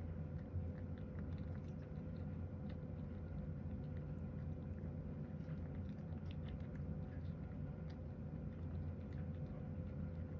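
A cat eating chopped carrot mixed with bonito flakes from a ceramic bowl: soft, irregular chewing and small wet clicks of its mouth in the food, over a steady low hum.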